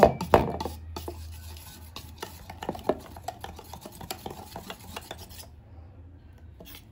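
Wire whisk stirring thin bajji batter in a steel bowl: a scraping, sloshing stir with small clicks of the wire against the bowl and one louder knock about a third of a second in. The stirring stops near the end, when the whisk is lifted to check that the batter runs off it.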